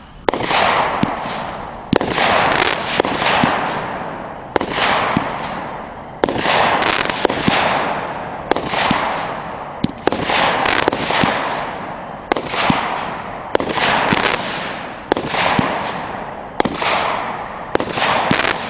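Miracle Fireworks 'High Roller' 200-gram, 20-shot consumer cake firing shot after shot, about one every second and a half. Each shot is a sharp bang followed by a fading hiss.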